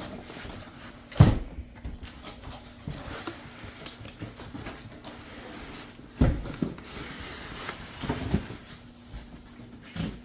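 Heavy cardboard shipping box and its packing being shifted and pulled around by hand, with scuffing and rustling and two dull thumps, about a second in and about six seconds in.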